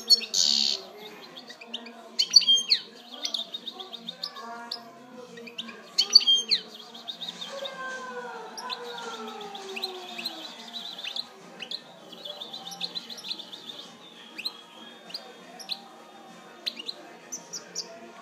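European goldfinch singing: a rapid twittering song of sharp chirps and trills, with the loudest bursts near the start and again about two and six seconds in.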